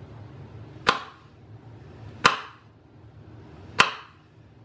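Knife slicing through a Granny Smith apple and striking a wooden cutting board: three sharp chops about a second and a half apart.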